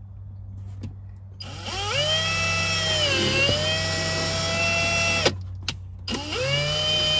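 Cordless drill boring through a plastic interior trim panel: the motor whine rises as it spins up, dips briefly under load, then runs steady for a few seconds and stops. After a short pause there is a second, shorter burst.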